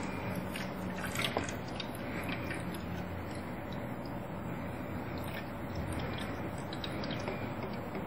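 Water poured from a plastic water bottle into a clear plastic humidifier tank, under a steady wash of noise. Scattered clicks and crackles of plastic come from the bottle and tank being handled, most of them in the first couple of seconds.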